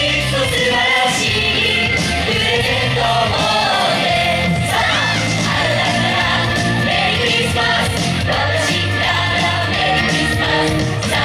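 Pop music with singing over a steady bass beat and light percussion; about five seconds in, a sung note is held with a wavering vibrato.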